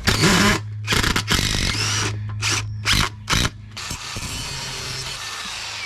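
A power drill driving screws, run in several short spurts and then a longer steady run.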